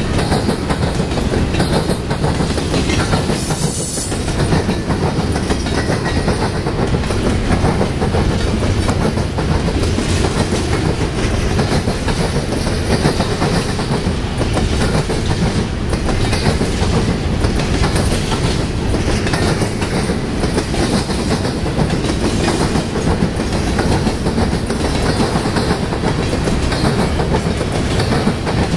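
Double-stack container train's loaded well cars rolling past at close range: a steady rumble with the wheels clicking over the rail joints.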